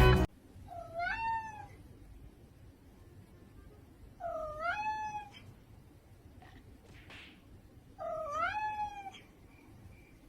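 A cat meowing three times, long calls a few seconds apart, each dipping and then rising in pitch.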